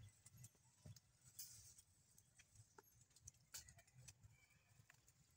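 Near silence: faint forest ambience with scattered soft clicks and rustles.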